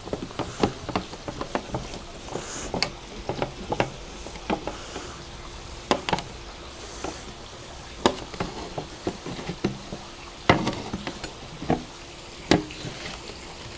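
A large knife cutting through a dry-aged ribeye's dried outer crust on a metal sheet pan, with irregular sharp clicks and taps as the blade scrapes and meets the pan.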